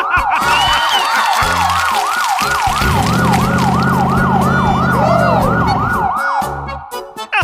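Emergency-vehicle siren in a fast yelp, about three sweeps a second, over background music with a beat; it stops about six seconds in. A low steady hum joins it for a few seconds midway.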